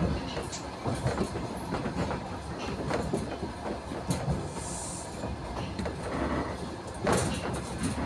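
Moving train heard from inside the carriage: a steady rumble of wheels on rails with irregular clacks, getting louder for a moment about seven seconds in.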